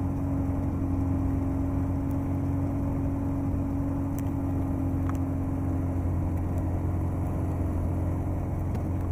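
Just Aircraft Highlander's propeller engine running steadily at low taxi power as the plane rolls onto the runway, heard from inside the cabin. It is an even, unchanging drone.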